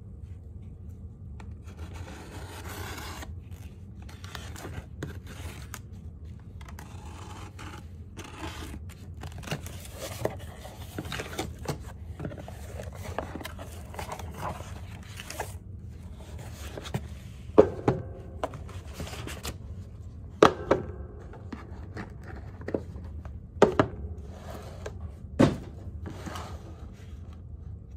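Cardboard shipping box being opened and unpacked by hand: continuous scraping and rustling of cardboard flaps and paper. In the second half, several sharp knocks as rigid cardboard planner boxes are set down on a wooden table.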